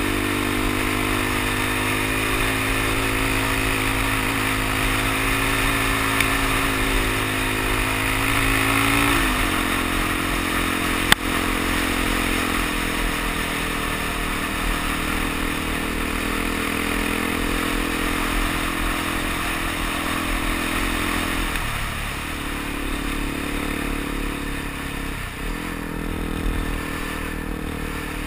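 Suzuki DR-Z dual-sport motorcycle's single-cylinder four-stroke engine running under way on a gravel road. Its pitch climbs slowly, then drops about nine seconds in, and it dips briefly twice near the end. There is one sharp click about eleven seconds in.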